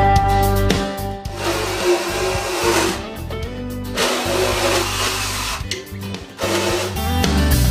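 Motorized equine dental float (power float) running as it rasps a mule's teeth, in two bursts of about a second and a half each. Guitar music plays before and after.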